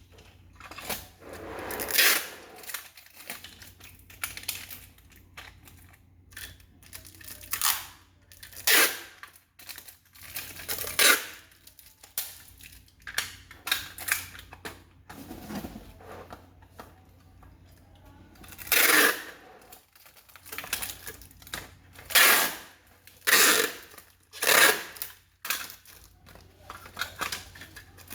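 Irregular rustling, tearing and clicking of packaging and parts being handled while a parcel is unpacked, with sharper bursts every few seconds.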